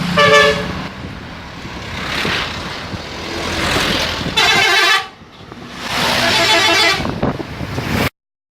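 A bus's 'telolet' multi-tone musical horn sounding in three short melodic blasts: one at the start, a loud one about four and a half seconds in, and a longer one around six to seven seconds in, with a rushing noise between the blasts.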